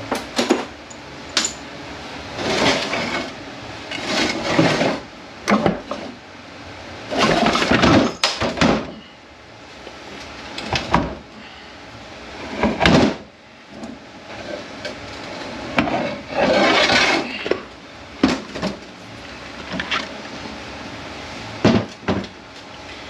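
Metal parts and hand tools clanking, knocking and scraping during bench teardown of a Mercedes 722.9 seven-speed automatic transmission. The sound is a string of separate clanks and rattles, with a few longer scraping stretches.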